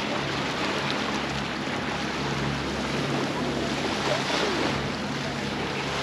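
Waves washing onto the beach: a steady rushing sound, with a low hum underneath.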